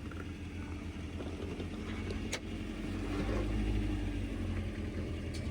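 An off-road truck's engine running at low revs while crawling over rocks, its load and rumble building about three seconds in. There is one sharp click or knock about two seconds in.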